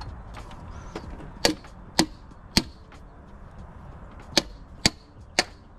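Six sharp taps in two sets of three, about half a second apart: a hammer tapping a piston down into its cylinder bore of a Vortec 4.2L inline-six engine block.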